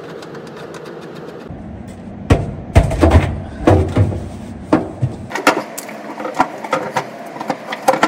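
Loud, irregular metallic knocks and clanks as the oil pan is worked off the underside of a Volvo FH truck's D13 engine, after about two seconds of light, rapid clicking over a steady hum.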